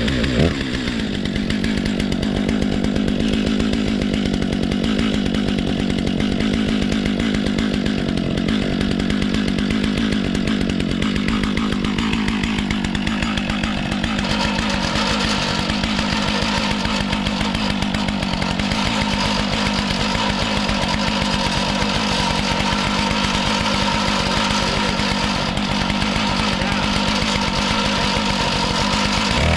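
Stihl MS 661 two-stroke chainsaw on a Granberg Alaskan chainsaw mill with a 56-inch bar, running steadily at full throttle under load as it rips a lengthwise slab through a large white oak crotch.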